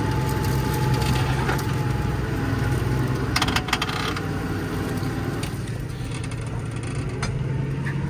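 New Holland tractor engine running steadily under load while ploughing, heard from inside the cab, with a burst of rattling clicks about three seconds in.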